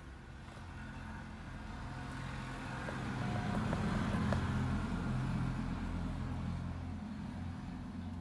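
A road vehicle's engine passing by, its low hum swelling to a peak about halfway through and then slowly fading.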